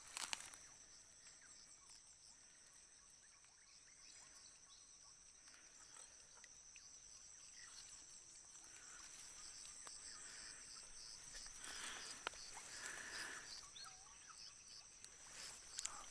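Faint outdoor ambience of insects, such as crickets, trilling steadily at a high pitch with a soft pulsing rhythm, and a few faint chirps in the second half.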